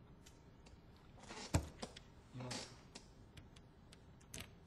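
Faint sharp clicks and knocks of poker chips and cards handled on a table, with one louder clack about a second and a half in, while a bet is made.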